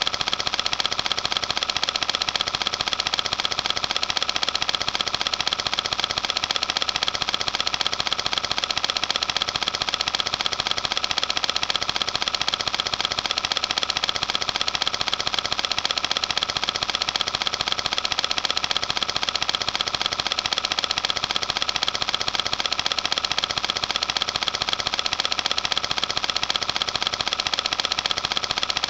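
Cine film projector running: a steady, rapid mechanical clatter of the film being pulled through.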